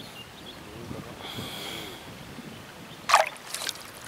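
Two short, sharp swishing sounds about three seconds in, the first loud and the second smaller, from a float rod being struck and the line tearing up out of the water. Before them there are only faint low breathy sounds.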